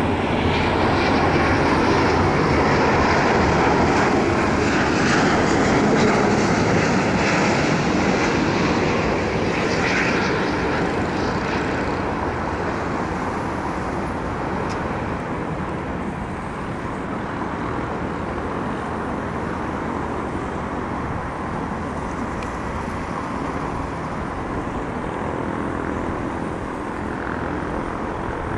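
Airbus A350-900's Rolls-Royce Trent XWB turbofan engines on a landing approach. The jet noise is loudest over the first ten seconds or so as the airliner passes close, then drops and holds steady as it comes down to the runway.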